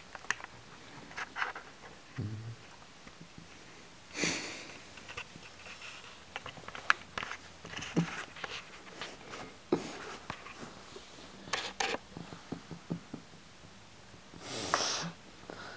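Two cats right at the microphone: faint rustling and clicks, with a few short noisy bursts about half a second long, the loudest near the end.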